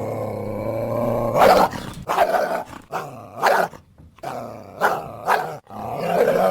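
Coyote vocalizing: a low, drawn-out growling call, then a string of about six short, sharp barks, ending in a higher, wavering call.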